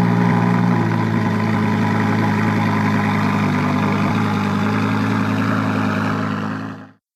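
Motorcycle engine idling steadily at a constant pitch, fading away and cutting to silence near the end.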